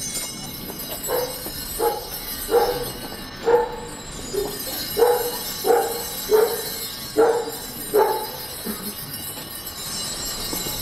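An animal calling in about ten short, sharp calls, unevenly spaced over six seconds, over a steady hiss.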